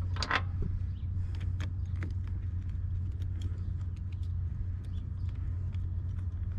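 Scattered light metallic clicks and taps of a wrench working the battery terminal nuts, over a steady low rumble.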